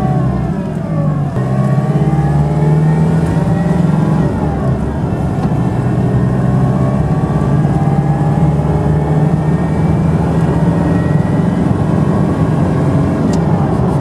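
Toyota Hilux 5L four-cylinder diesel engine running while the ute is driven, heard from inside the cab: a steady low drone with fainter whining tones that glide up and down in pitch. The owner is chasing a rattly, bearing-like noise and a whizzy noise from this engine that he thinks isn't right.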